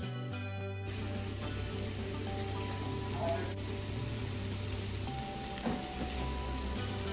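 Sliced bitter gourd and potatoes sizzling in hot oil in a frying pan. The sizzle comes in about a second in, and a spatula scrapes and taps the pan as the vegetables are stirred. Background music plays underneath.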